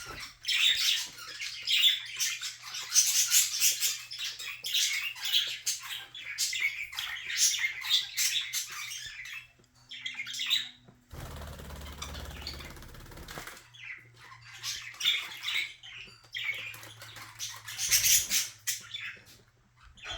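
Small pet birds rummaging through clothes: quick, crackly rustling and fluttering with short chirps. Around the middle it gives way for a couple of seconds to a softer, steadier rustle.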